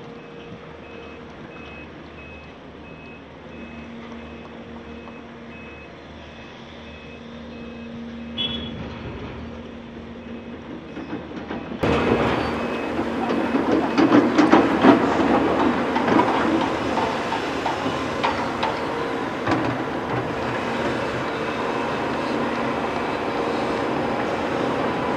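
Caterpillar 336 hydraulic excavator's diesel engine running as it loads a tipper truck, with a reversing alarm beeping at an even pace through the first half. About halfway through it gets louder as the bucket dumps earth into the truck's steel tipper body, with a clatter of falling soil and stones.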